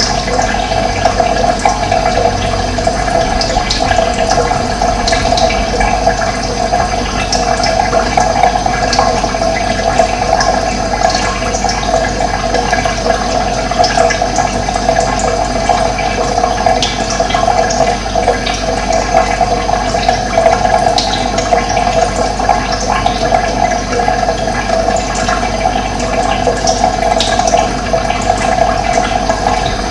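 Running water flowing steadily, with small birds chirping briefly now and then over it.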